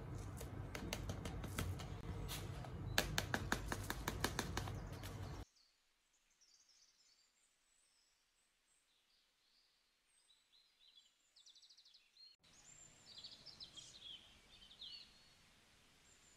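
Soil and a plastic plant pot being handled while a hyacinth bulb is repotted: rustling and scraping with a run of quick clicks. It cuts off about five seconds in, and small birds then chirp faintly, a little louder near the end.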